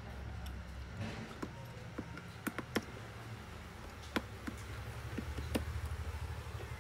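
Scattered light clicks and taps from a small screwdriver and tiny screws being worked out of a smartphone's frame, over a low steady hum.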